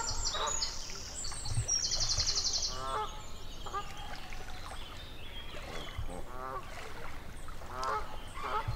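Geese honking: short, nasal calls repeated every second or so.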